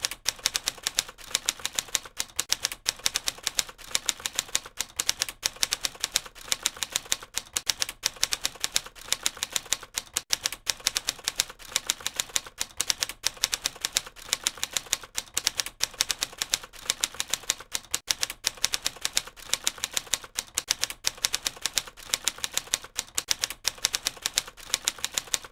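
Rapid, steady key-typing clicks, several a second: a typing sound effect.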